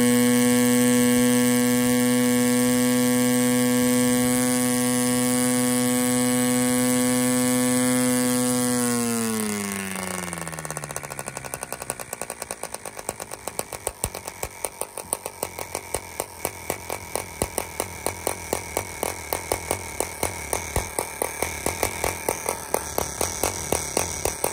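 G.B. 5 cc model diesel engine with an R/C carburettor, swinging a 12 x 4 nylon propeller, running steadily at high speed, then throttled back about nine seconds in. The pitch falls smoothly to a low idle with an uneven beat of distinct pops about three a second.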